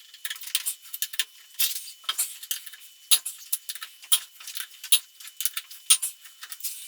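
Breaker bar and 21 mm socket working the rear lug nuts loose, with many irregular sharp metallic clicks and clinks, the louder ones coming about once a second in the second half.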